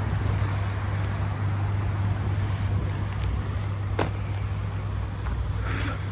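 Steady low rumble of road traffic, with a sharp click about four seconds in and a brief hiss near the end.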